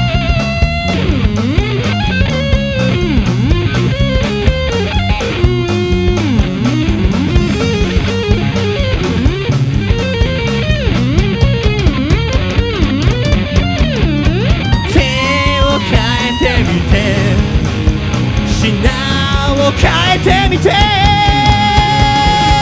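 Rock band playing live, an instrumental break with a lead guitar line bending and sliding in pitch over a steady drum beat and bass. The guitar holds long notes near the end.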